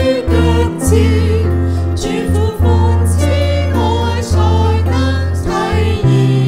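A hymn sung over instrumental accompaniment, with long held bass notes that change every second or two.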